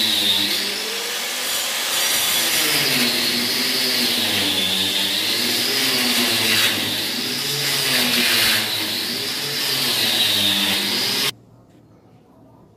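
Handheld electric angle grinder cutting a groove into a brick wall to chase in concealed wiring. The grinder's whine rises and falls as the disc bites into the brick, and it stops suddenly near the end.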